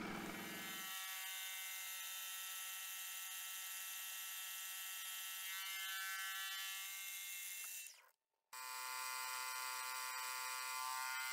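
Milling machine spindle running steadily as its cutter faces an aluminium block to square it up, a steady whine made of many even tones. It breaks off for about half a second around eight seconds in and then carries on.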